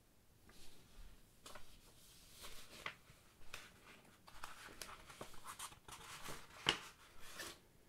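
Sheets of printed paper being handled and leafed through, making irregular soft rustles with one sharper crackle near the end.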